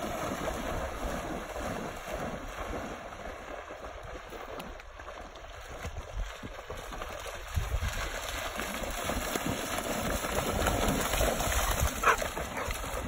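Retriever dogs swimming through a muddy pond, with water splashing and churning under a low rumble that grows stronger about halfway through.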